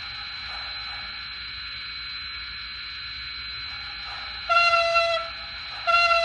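SoundTraxx Tsunami sound decoder in an N-scale Pennsylvania Railroad J-1 2-10-4 steam locomotive model, playing a steady idling hiss through the model's small speaker. Near the end it sounds two short steam-whistle blasts close together.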